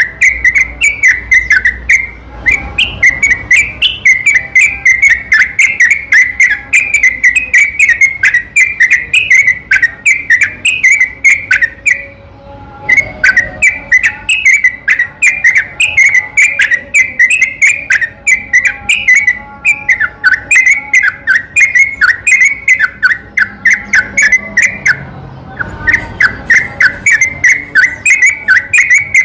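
Yellow-vented bulbul (trucukan) song: a long, fast run of chattering whistled notes repeated several times a second, with only a few brief breaks. This is the rapid, unbroken 'ropel' style used as a lure to set other trucukan singing.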